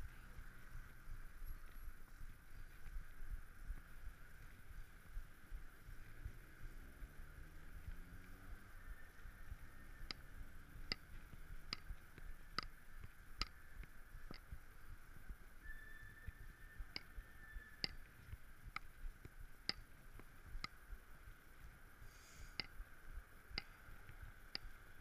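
Low rumble of a mountain bike rolling over paving stones, with sharp ticks roughly once a second in the second half.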